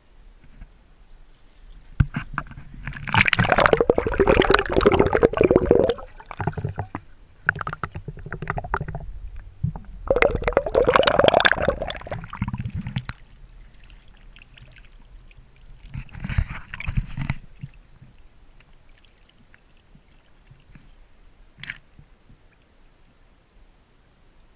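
Water splashing and sloshing in three loud bursts, each a few seconds long, with quieter stretches between.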